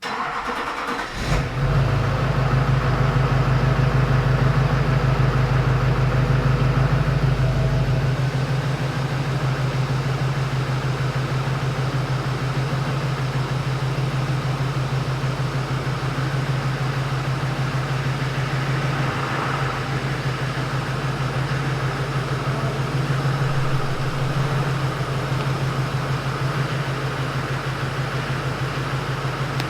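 Duramax 6.6-litre V8 turbodiesel engine running steadily, with a deeper low rumble that eases off about eight seconds in.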